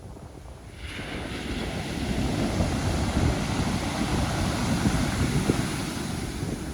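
Pacific Ocean surf: a wave breaks about a second in and its wash hisses on, with wind buffeting the microphone underneath.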